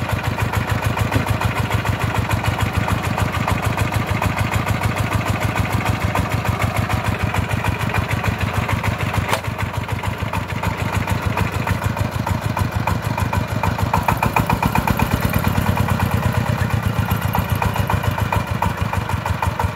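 Single-cylinder diesel engine of a công nông three-wheeled farm dump truck idling with a steady, rapid thump. About fourteen seconds in it runs louder and harder as the dump bed is tipped to unload the soil.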